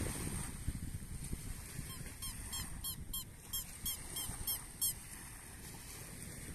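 Wind buffeting the microphone over light surf at a beach. In the middle comes a quick run of about ten short, high squeaky calls, roughly three a second, from an unidentified source.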